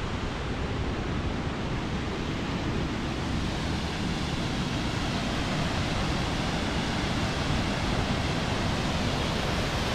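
Waterfall rushing close by: a steady, even roar of falling water.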